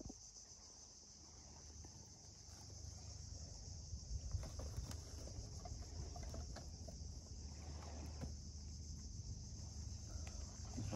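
Steady high-pitched insect chirring, like crickets, over a low outdoor rumble, with a few faint soft knocks and rustles.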